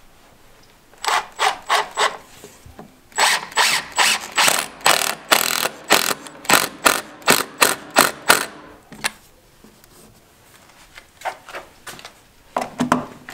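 Milwaukee cordless impact driver driving screws into a wooden window frame, its hammering coming in short rapid bursts of about three a second. A few bursts come about a second in, then a long run, then a pause of about two seconds, then more bursts near the end.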